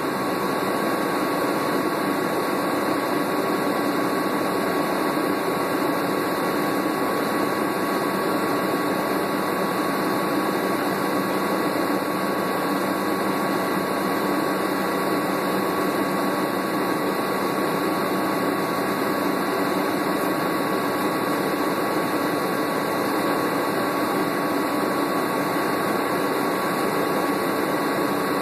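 Cabin sound of a 2001 New Flyer C40LF transit bus standing still, its repowered Doosan CNG engine idling under the rush of the air conditioning. The hum is steady, with a constant high whine riding on top.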